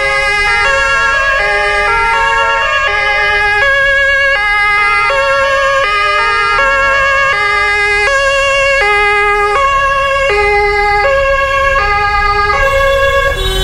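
Several German two-tone emergency sirens (Martinshorn) sounding at once, each alternating between a low and a high note about every half second, out of step with one another so the notes overlap. A low vehicle rumble runs underneath.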